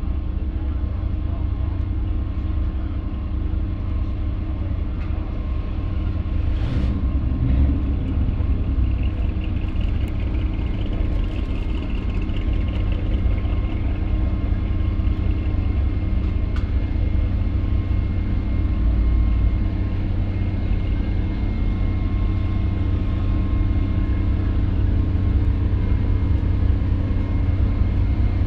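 Steady low rumble with a constant hum of a running engine, holding level throughout.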